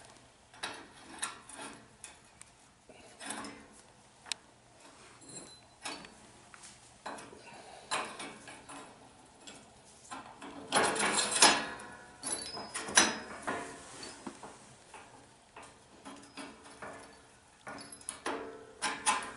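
Steel steering spindle, hub, bushings and pin clinking and knocking as they are handled and fitted together into the steering bracket. Scattered light metal clicks, with a cluster of louder knocks and rattles a little past halfway.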